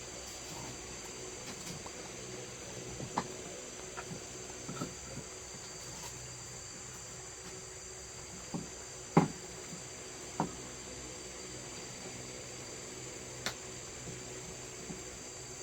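Steady high-pitched insect trilling, with a few scattered light knocks and clicks; the sharpest knock comes about nine seconds in.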